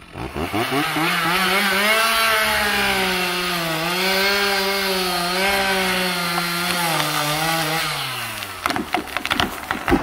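Chainsaw revving up and cutting into the base of a standing tree in a felling cut, its pitch wavering slightly under load for about eight seconds before it drops away. Several sharp cracks follow near the end as the tree starts to go over.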